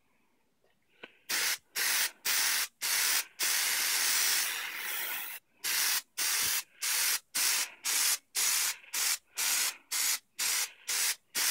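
Aerosol can of Plasti Dip rubber coating spraying in short hissing bursts, starting about a second and a half in. There is one longer spray of about two seconds in the middle, then a quick run of short bursts, two or three a second.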